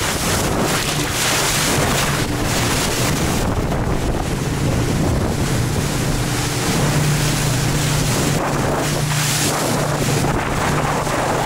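Motorboat running at speed: a steady engine hum under the rush of spray and wake along the hull, with heavy wind buffeting the microphone. The engine hum grows stronger about two-thirds of the way through.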